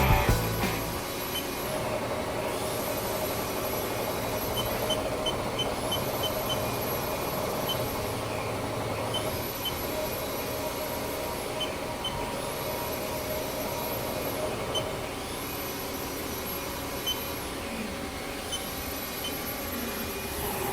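Haas SL-10 CNC lathe running: a steady mechanical hum with a faint high whine that rises and falls about every two and a half seconds.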